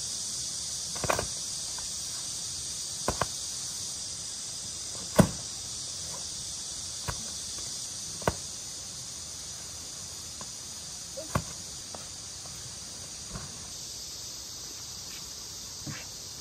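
Steady, high insect drone of a summer garden. Over it come scattered light knocks and slaps from flexible mats being laid on stone paving and from footsteps in slippers. The sharpest knock comes about five seconds in.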